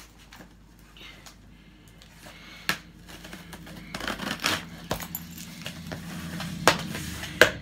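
Scissors cutting the packing tape on a cardboard shipping box: blade scraping and snipping along the tape with cardboard rustling, and a few sharp clicks, the loudest near the end.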